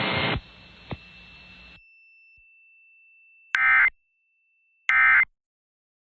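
EAS SAME end-of-message (EOM) data bursts from a weather radio broadcast: two short digital bursts about 1.3 s apart, signalling the end of the alert. They follow brief radio hiss that cuts off.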